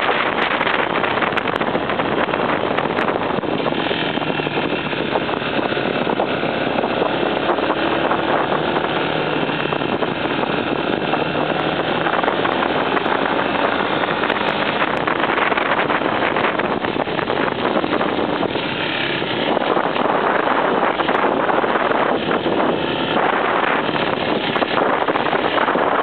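Off-road motorcycle engine running steadily while climbing a dirt road, mixed with heavy wind noise on the handlebar-mounted microphone.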